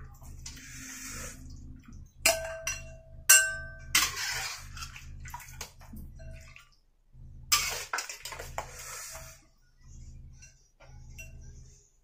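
A metal spoon or ladle clinking against a steel wok or pot: three sharp clinks, about 2, 3 and 4 seconds in, each with a brief metallic ring. Between them come several short bouts of liquid sloshing and splashing.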